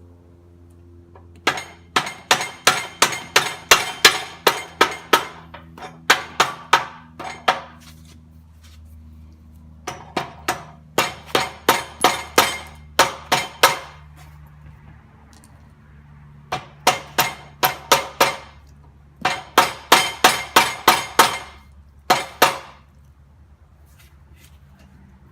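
Hammer blows on steel, driving a tight-fitting backhoe quick-on bucket connector into place: runs of sharp metallic strikes at about three a second, in six bursts with short pauses between, over a steady low hum.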